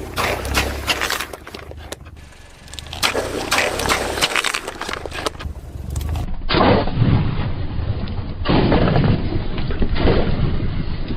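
Plastic toy vehicles clattering and scraping as they are pushed and knocked about, in two rattling spells; about six seconds in the sound changes to a duller, rumbling scrape.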